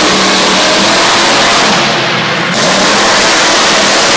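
Monster truck engine revving hard at full throttle, loud and harsh, with a short dip in level a little past halfway before it revs up again.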